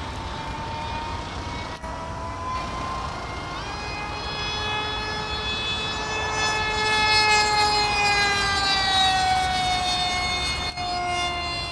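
Brushless electric motor and propeller of a radio-controlled model plane whining as it flies past. The pitch jumps up about three and a half seconds in, is loudest midway, then slides steadily down as the plane moves away.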